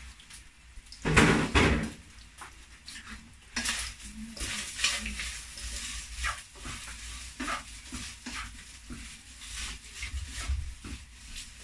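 Wooden spatula stirring and scraping food in a frying pan over a faint sizzle, in repeated short strokes. A brief loud clatter comes about a second in.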